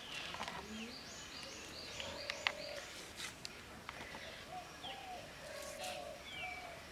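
Birds calling: a quick run of high chirps in the first second and a half, then low dove-like cooing notes. A few sharp clicks, the loudest about two and a half seconds in, come from a green chili being sliced against a boti blade.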